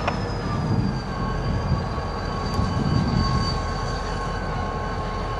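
Freight train rolling: a steady low rumble with thin, high-pitched squealing tones from the wheels held throughout.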